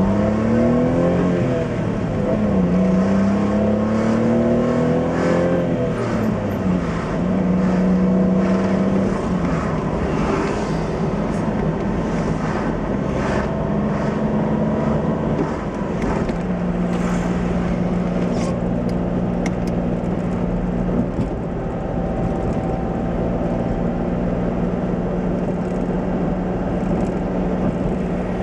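Honda Beat's small three-cylinder engine heard from inside the cabin, pulling up through the gears. Its note rises and drops at each shift in the first several seconds, then holds steady at a cruise.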